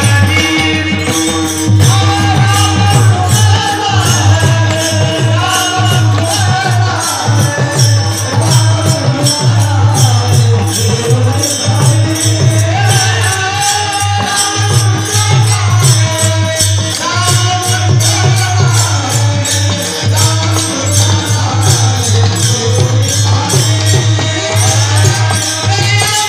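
Devotional kirtan chal: a voice sings a winding melody over a fast, steady jingling beat and a sustained low accompaniment.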